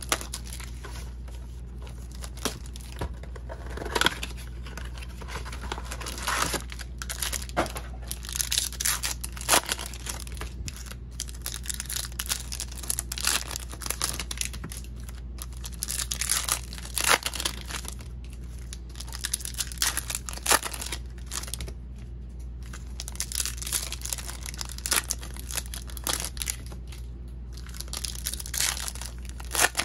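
Plastic and foil wrappers of a Topps 2020 Series 2 baseball card blaster box being torn open and crinkled as the box and its packs are unwrapped. The rustles and tears come irregularly, over a steady low hum.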